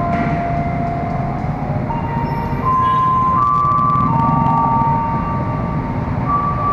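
A slow run of held, steady tones stepping between a few pitches, sometimes two at once, over a steady low rumble.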